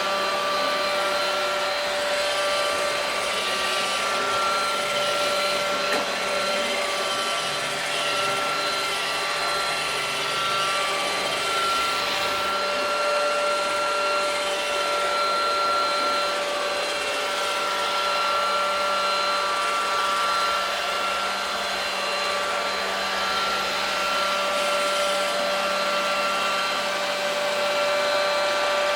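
iRobot Roomba robot vacuum running steadily, a constant machine hum with a steady whine from its vacuum motor and brushes.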